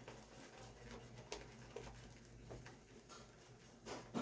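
Near silence: quiet room tone with a faint low hum and a few faint, brief clicks.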